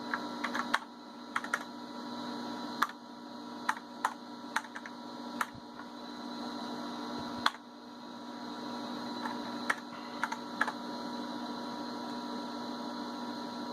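Computer keyboard keys pressed one at a time at irregular intervals, about fifteen clicks in all, over a steady electrical hum with several fixed tones from the running vintage computer setup.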